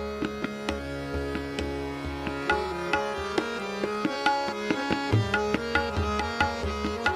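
Tabla keeping the ten-beat jhaptal cycle between sung phrases of raga Kedar, its strokes ringing out over a steady plucked-string drone.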